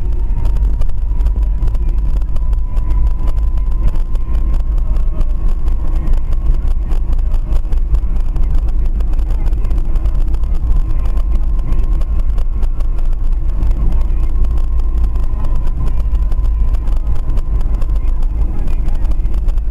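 A motor vehicle running with a steady low rumble, with a faint, steady high whine above it.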